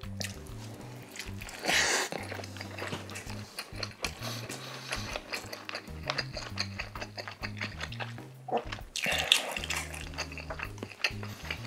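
Close-miked chewing of a soft egg-and-cheese sandwich: wet mouth sounds and small clicks, with two louder bursts about two seconds in and again near nine seconds. Background music with a steady low bass line runs underneath.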